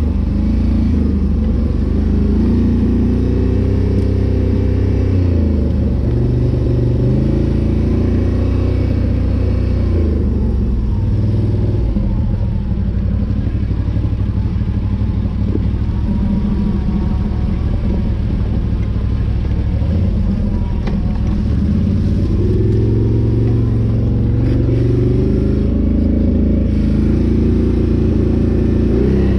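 Can-Am Renegade 800 ATV's V-twin engine running hard on a trail ride, revs stepping up and down with the throttle. The revs ease off for several seconds in the middle, then climb again near the end.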